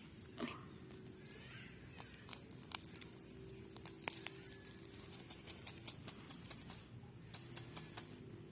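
Leafy plant stems being picked and torn by hand: a run of small sharp snaps and crackles that grows busier in the second half.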